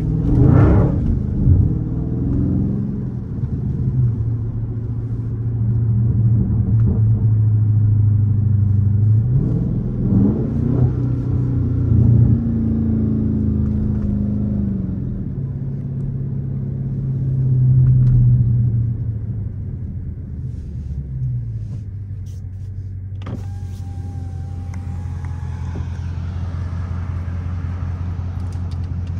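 Dodge Charger Scat Pack's 392 HEMI V8 running under way, rising in pitch several times as it accelerates and then settling to a steady idle. About 23 seconds in, a power window motor whines for about three seconds as the side window goes down, letting in outside noise.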